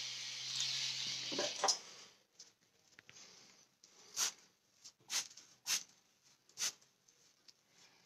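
A pen-style rotary tattoo machine runs with a steady buzzing hiss and stops just under two seconds in. After it stops come a few short, sharp swishes of a paper towel wiping the freshly tattooed skin.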